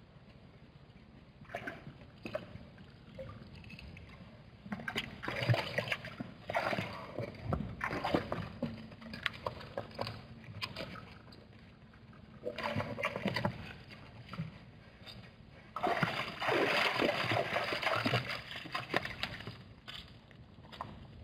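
Water sloshing and splashing in a shallow waterhole as zebras drink and step through it, in several irregular bursts of a few seconds each with small clicks and slaps, the longest near the end.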